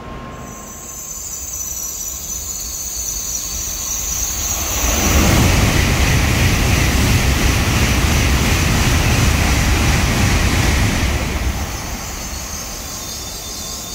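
Shinkansen bullet train on the track: its rail noise builds over the first few seconds with a thin high tone above it, runs loud for about six seconds, then drops off fairly sharply.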